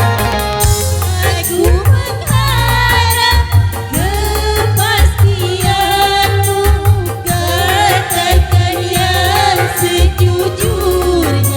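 Dangdut remix music with a heavy, pounding bass beat and hi-hat, under a wavering, ornamented melody line.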